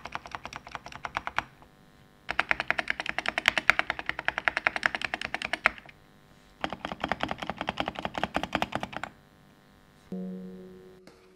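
Typing on a CIDOO Nebula 65% keyboard with factory-lubed CIDOO linear switches, an FR4 plate and PBT keycaps: three runs of fast, even keystrokes with short pauses between. About ten seconds in, a few music notes begin.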